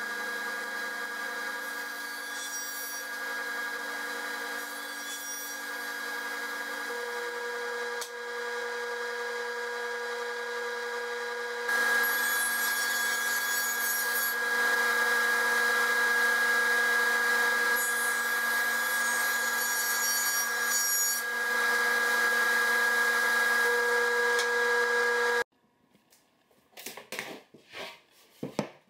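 Table saw running steadily and cutting a sheet of plywood, louder from about halfway in while the blade is in the wood. The sound cuts off abruptly near the end, followed by a few light knocks of a plywood panel being handled.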